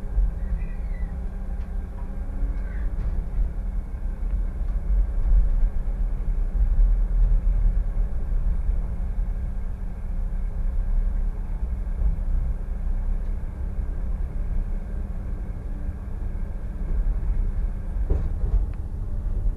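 Solaris Tramino S105p low-floor tram running steadily at about 20 km/h, heard from inside the driver's cab: a steady low rumble of wheels on rail with a faint drive hum, and a faint click near the end.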